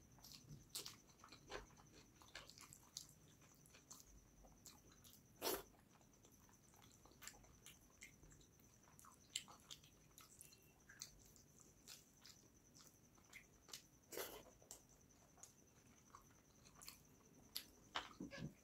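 Faint, close-miked eating: scattered short wet clicks and smacks from chewing and from fingers mixing rice with fish curry on a steel plate. Two louder ones come about five and fourteen seconds in.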